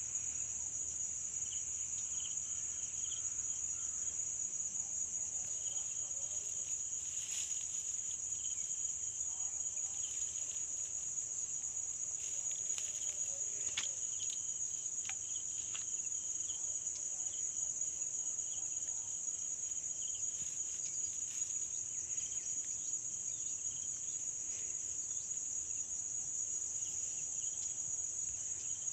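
Steady high-pitched insect chorus that runs without a break, with a few faint clicks.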